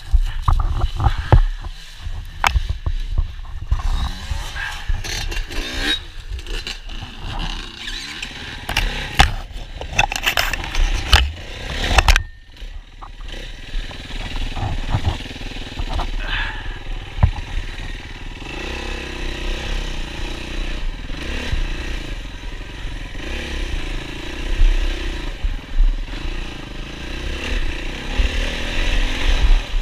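Off-road motorcycle engines idling and blipping the throttle, with a run of knocks and rattles against the camera in the first half and a steadier engine note, rising and falling in steps, from past the halfway point.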